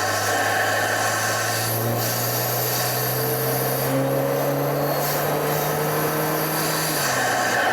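BMW 328i's N20 turbocharged four-cylinder engine, fitted with an aftermarket open intake, pulling with its note rising slowly and steadily, over road and cabin noise; the pitch drops about seven seconds in.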